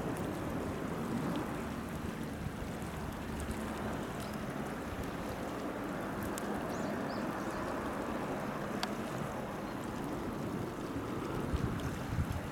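Steady outdoor harbour ambience: wind noise and lapping seawater, with a few faint, brief high chirps.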